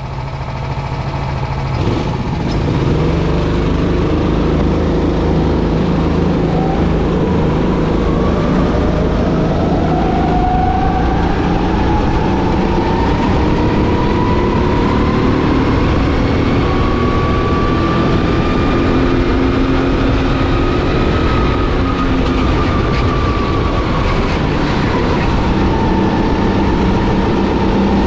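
Racing kart engine running hard, its note rising and falling with the revs. The note holds steady and low for the first couple of seconds, then climbs and keeps changing pitch.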